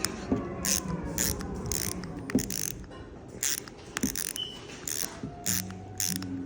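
Repeated irregular clicks and scrapes of a Phillips driver bit working a stuck motor mount screw back and forth, tightening and re-loosening it to clear threads clogged with Loctite.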